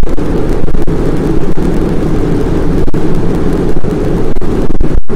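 Loud, dense rumbling roar with sharp crackles every second or so, dropping out for a moment near the end. It is the sound played with footage of the JET tokamak during a deuterium–tritium plasma pulse, which the narrator calls the violent sound of deuterium and tritium fusing into helium.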